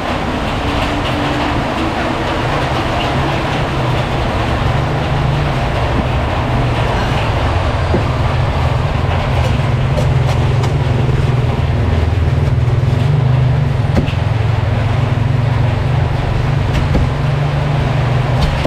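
Steady low rumble of street traffic, with a few faint knocks of a cleaver on the cutting board as a roast duck is cut.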